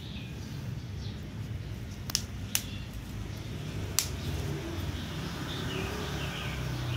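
Thin clear plastic cups clicking sharply three times as a hand handles them, over faint bird chirps and a low steady rumble.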